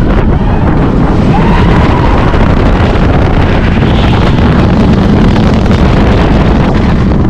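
Loud, steady wind noise buffeting the microphone, heaviest in the low end.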